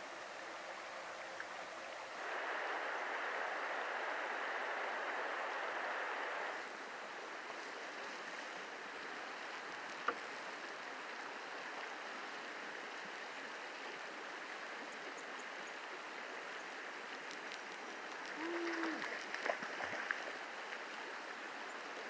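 River water running over shallow rocky riffles, a steady rushing that grows louder from about two to six seconds in. A single sharp click comes about ten seconds in, and a few short knocks and clicks follow near the end.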